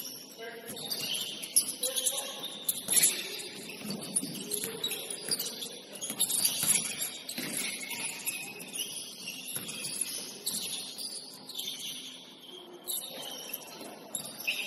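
Basketball shoes squeaking on a gym floor again and again in short high squeaks, with the ball bouncing and knocking now and then.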